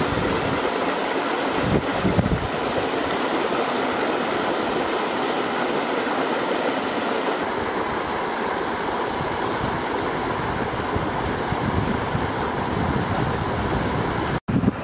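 Shallow rocky river running over small cascades: a steady rush of flowing water.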